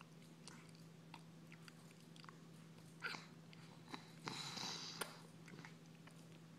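A baby chewing and smacking on a piece of chicken: faint, scattered wet mouth clicks, with a louder, noisier stretch of smacking about four seconds in. A steady low hum runs underneath.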